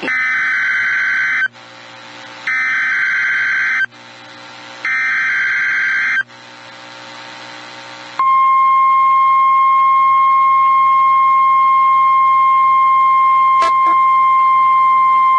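NOAA Weather Radio Emergency Alert System SAME header: three short bursts of warbling data tones about a second apart. About eight seconds in, the steady single-pitch 1050 Hz Weather Radio warning alarm tone starts, signalling a new warning, with one brief click partway through.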